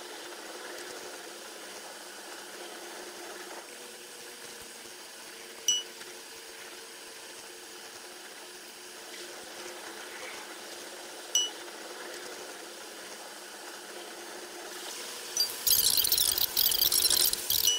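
Running sound of a train on the Bergen Line, played back at ten times speed so it becomes a steady water-like rush. Two short high blips come about six seconds apart, and a much louder harsh rush fills the last two seconds.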